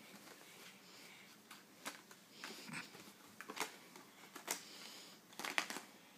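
Faint, scattered short taps and scratches of a felt-tip marker on paper as a toddler scribbles, a handful of them spread irregularly.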